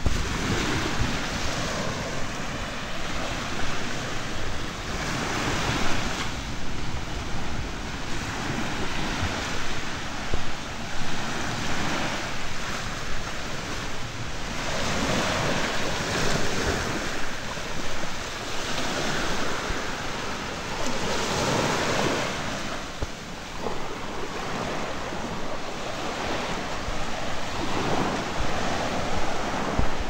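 Small waves washing onto a sandy beach, swelling and easing every few seconds, with wind rumbling on the microphone.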